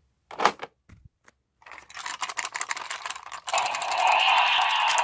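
Shake N Go toy race car: a few plastic clicks, then rattling and clicking as the car is shaken to charge it. About three and a half seconds in, a loud steady whirring starts as the car is released and races along the plastic track.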